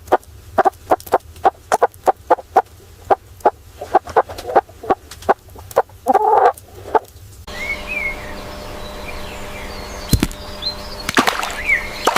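Chickens pecking at feed in a rapid run of sharp taps, with a short cluck about six seconds in. Past the middle the tapping gives way to a steady low hum, with small birds chirping faintly and one sharp knock.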